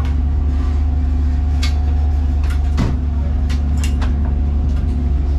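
A steady low mechanical hum underneath scattered light clicks and knocks, as hands work the fitting of a gas bottle mounted in a race car's cockpit.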